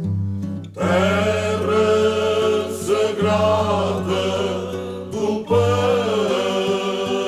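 Background music: a song with singing over a steady low accompaniment, the voice coming in just under a second in.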